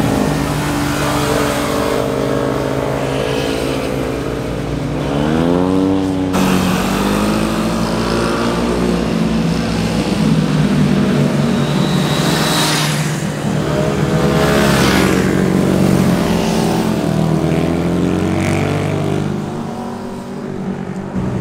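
Motorcycle engines passing one after another, revving up and easing off as they ride by. A sudden cut about six seconds in.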